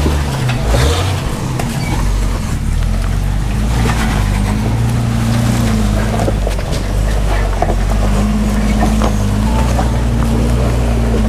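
Jeep Wrangler engine running at low revs as it crawls up a rocky trail, its pitch rising and falling a little, with scattered clicks and knocks.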